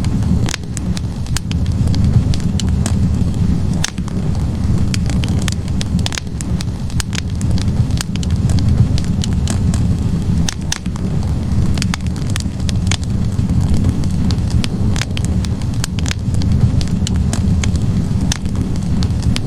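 Wood fire burning in a fireplace: a steady low roar of flames with frequent, irregular sharp crackles and pops from the burning logs.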